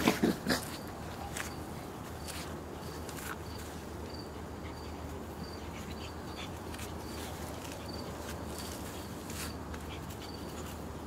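Two Shih Tzus play-fighting: a brief loud burst of play-growling right at the start, then quieter scuffling of paws on artificial turf. A faint high chirp repeats steadily in the background, about every two-thirds of a second.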